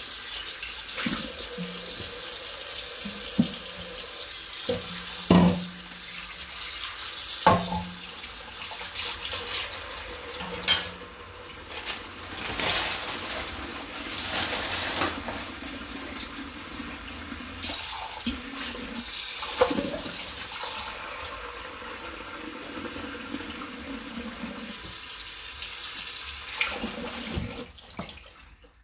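Tap water running into a sink while dishes are washed by hand, with a few sharp clinks and knocks of dishes. The water stops near the end.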